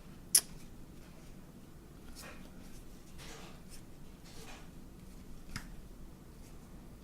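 Soft rustling and sliding as baseball cards and pack wrappers are handled, in several short swishes, with one sharp click just after the start.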